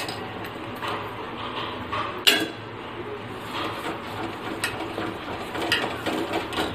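A ladle stirring in a cooking pot, with scattered sharp clinks of the ladle against the pot, the loudest about two seconds in, as powdered jaggery is stirred into boiling spice water.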